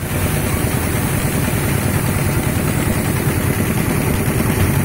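Motorized paddy thresher running steadily, its spiked drum spinning as bundles of rice stalks are held against it to strip off the grain.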